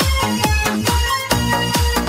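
Electronic dance music with a steady thumping beat and sustained synth tones.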